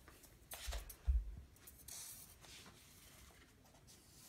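Pens gripped between bare toes scratching on sheets of paper taped to a wooden floor, with two dull thumps about a second in.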